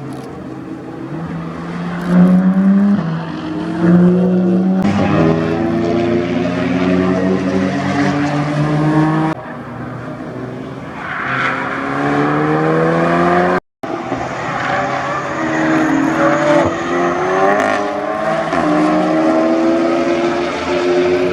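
Track cars working through a chicane: engines falling in pitch as they slow and then rising again in repeated upward sweeps as they accelerate away. The sound cuts off suddenly about two-thirds of the way through and another car takes over.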